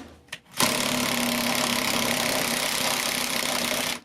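A power tool running flat out in one long burst of about three and a half seconds, after a brief blip, with a steady hum under a loud hiss; it cuts off abruptly.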